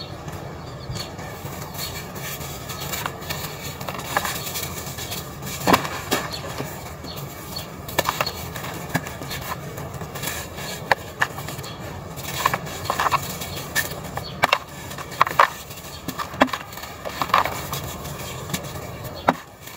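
Dry red dirt chunks being crushed and crumbled by hand over a plastic basin of red dirt powder: irregular gritty crunches and crackles as pieces break off and fall into the powder.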